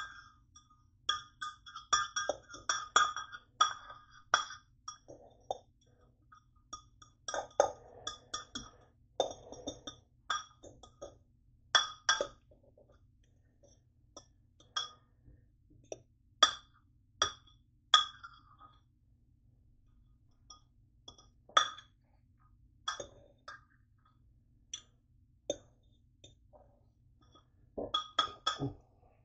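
Kitchen utensils clinking and tapping against metal cookware: sharp clinks, each with a brief ring, in quick flurries through the first dozen seconds and again near the end, with scattered single taps between.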